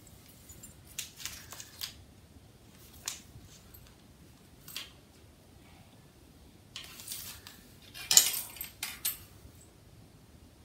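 Sewing tools handled on cloth over a hard floor: a few short rustles and clicks, then a louder clatter about eight seconds in as a plastic ruler is picked up and laid across the fabric.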